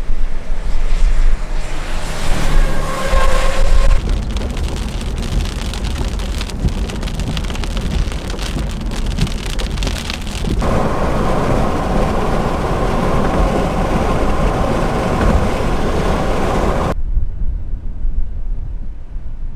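Wind buffeting the microphone under the hiss of heavy rain in a thunderstorm. The sound changes abruptly several times as the shots cut.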